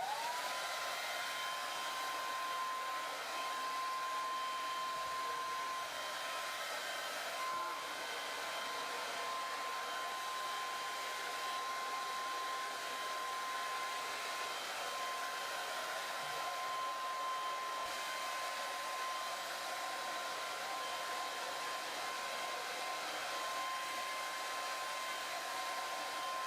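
Hair dryer switched on: its motor whine rises to a steady pitch within the first half second, then runs steadily over a constant hiss of blowing air.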